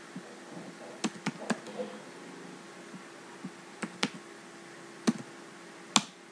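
Computer keyboard keystrokes and mouse clicks: about seven short, sharp clicks in small groups, over a faint steady hum.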